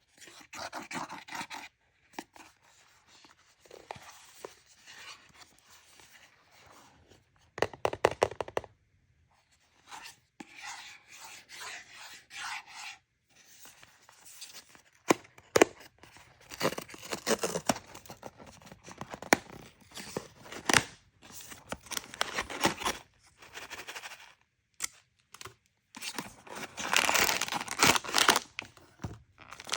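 Toy packaging being torn open and handled close up, in stop-start bursts of tearing, crinkling and scraping with a few sharp clicks, broken by brief dead-silent gaps; the densest tearing comes near the end.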